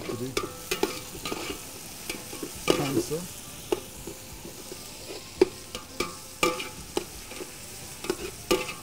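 Onions frying in oil in a metal pot, stirred with a spoon that knocks and scrapes against the pot in irregular strokes over a light sizzle.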